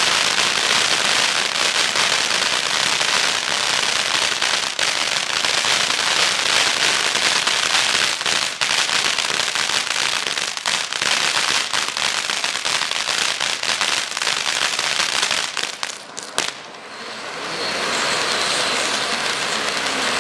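Dominator Helix spinning fountain firework spraying with a dense, steady crackle. It dies away briefly about three-quarters of the way through, then comes back.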